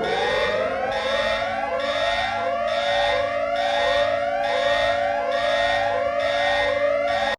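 Electronic emergency-alert siren tone: a rising whoop repeating about every two-thirds of a second over steady held tones. It cuts off abruptly at the end.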